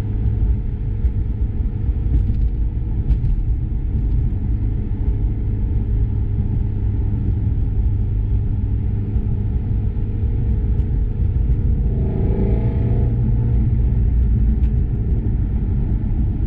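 Inside the cabin of a Ford Mustang Shelby GT350R on the move: a steady low drone from its 5.2-litre flat-plane-crank V8 mixed with road rumble. A brief higher-pitched sound joins about twelve seconds in.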